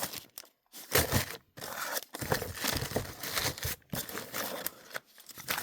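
Crinkling and rustling of packaging, with occasional light knocks, as vintage sewing machine parts are handled and sorted out of a box.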